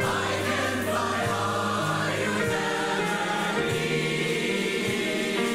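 A mixed choir of men and women singing, holding long sustained notes that change pitch every second or two.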